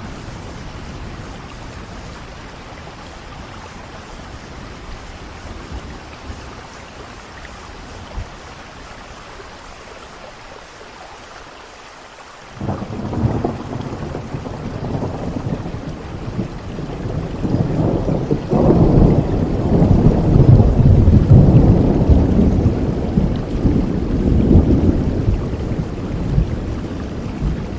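Steady rain, with thunder rumbling in suddenly about halfway through, growing louder and then slowly easing off near the end.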